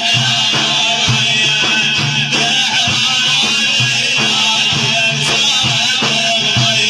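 Music: plucked strings over a steady drum beat.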